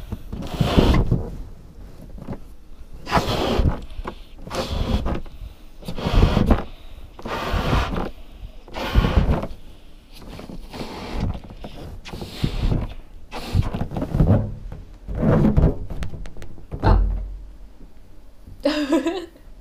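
A latex balloon being blown up by mouth, heard from a camera inside it: a long run of breaths pushed in one after another, about every second and a half, each a short rushing puff.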